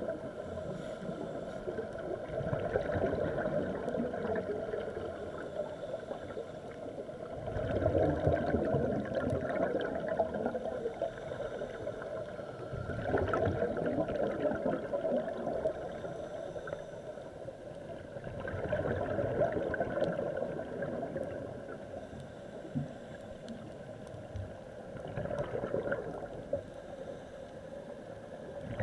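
Underwater bubbling and gurgling of scuba divers' exhaled breath from their regulators. It swells up in bursts about every five to six seconds, in time with breathing.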